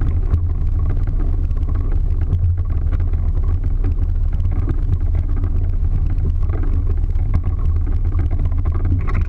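Small motorboat running fast across choppy water: a loud, steady low rumble of engine, hull and water, with wind on the microphone.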